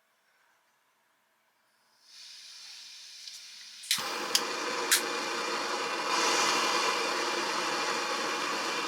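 Camping gas stove being lit: a faint hiss of gas begins about two seconds in. About four seconds in a click lights the burner, which then burns with a steady, much louder hiss, with a couple more clicks just after.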